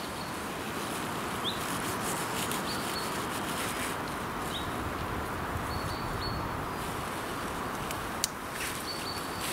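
Woodland ambience: a steady background hiss with a few short, rising bird chirps scattered through it. There is a single sharp click near the end.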